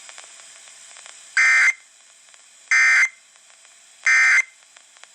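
Emergency Alert System end-of-message data bursts sent after a severe thunderstorm warning: three short, identical buzzy digital squawks about 1.3 seconds apart, over faint radio hiss.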